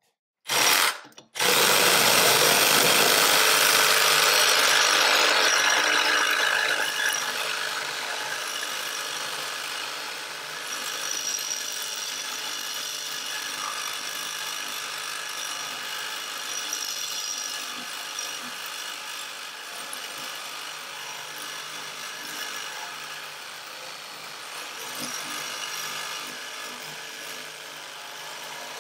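Milwaukee Hackzall cordless reciprocating saw cutting through the steel pipe at a convector radiator's union. A short blip of the motor comes first, then a steady run of the blade sawing metal, loudest for the first few seconds and a little quieter as the cut goes on.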